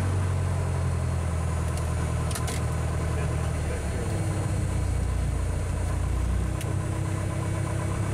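Piper Archer's engine and propeller running steadily, heard from inside the cockpit. The low drone shifts in tone about four seconds in.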